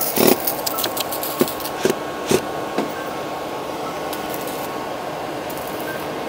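A few short, light clicks and taps of metal parts and screws being handled as a small welding machine's casing is taken apart, over a steady hiss and faint hum.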